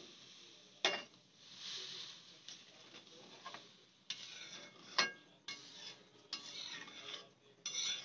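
Metal ladle stirring watery barnyard millet in a metal wok, scraping across the pan in short strokes. Sharp clinks of metal on the pan come about one second in and again about five seconds in.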